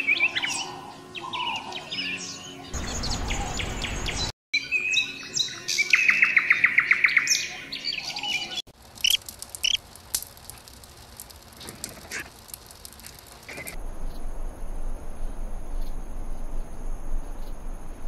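Small songbirds chirping and calling in a string of short passages that change abruptly several times, one holding a rapid series of repeated notes; near the end a steady high buzz sits under sparse calls.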